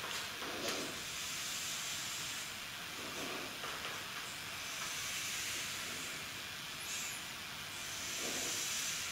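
Steady background hiss with a few faint scrapes of chalk drawing straight lines on a chalkboard, each stroke lasting about half a second.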